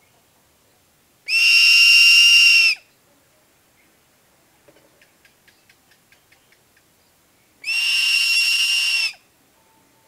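Crested serpent eagle calling twice: two loud, drawn-out whistles of about a second and a half each, held at one pitch and a few seconds apart, with faint quick ticking between them.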